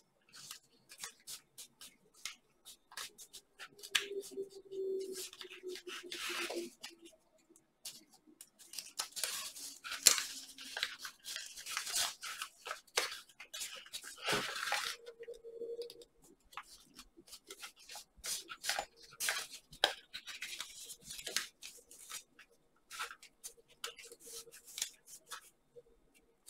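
Origami paper being folded and creased by hand: irregular crinkling and rustling with frequent sharp crackles as the stiff, layered paper is pinched and shaped.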